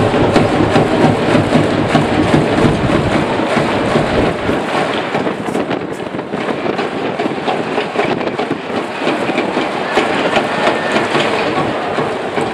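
Strong wind buffeting the microphone over a ballpark crowd's noise, a dense rushing wash with many small crackles; the deep rumble of the gusts eases about four seconds in.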